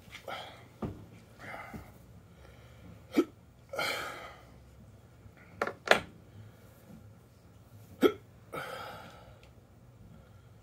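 A man hiccuping repeatedly, five sharp hiccups every two to three seconds, two of them close together, with breathy exhales between. The hiccups are brought on by eating an extremely hot chili-pepper chip.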